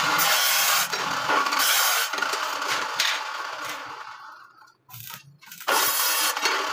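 A steady, harsh, hissing noise from metalwork on a steel grill. It fades out about four and a half seconds in and starts again sharply about a second later.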